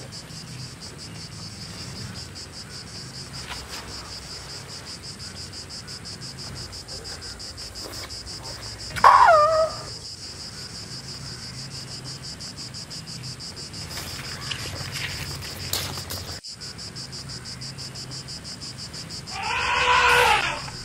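Steady, fast-pulsing high chorus of forest insects throughout. Over it, an Asian elephant calls: a short call falling in pitch about halfway through, and a longer trumpeting call near the end as it raises its trunk.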